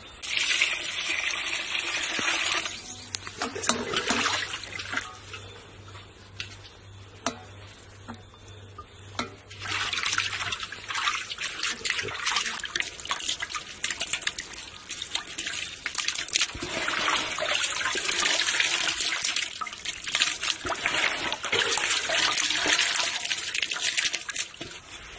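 Hands washing chopped chicken in a metal pot of water: water sloshing and splashing and wet meat squelching as it is stirred and squeezed, in bursts with quieter pauses, the longest near the end.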